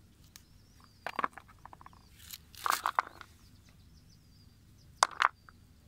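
Rock specimens knocking and clicking against each other as they are handled and set down among a pile of stones: scattered knocks, a short rattle, and two sharp clicks near the end. Birds chirp faintly in the background.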